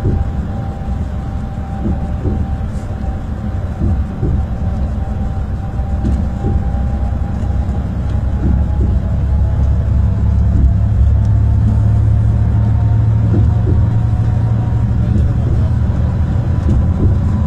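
Bus interior noise while driving on a highway: a steady low rumble from the engine and road, getting somewhat louder about halfway through, with a faint whine over it.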